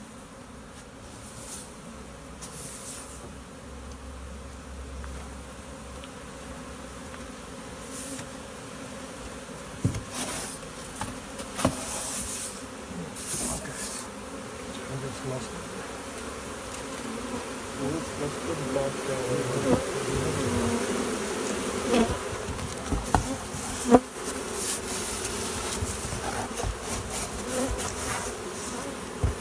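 A large honeybee swarm buzzing, the hum swelling louder in the second half as the bees are disturbed, with a few sharp knocks of hive equipment being handled.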